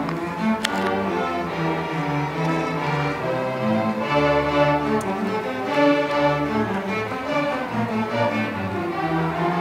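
String orchestra playing: violins, cellos and double bass bowing sustained notes that change every second or so.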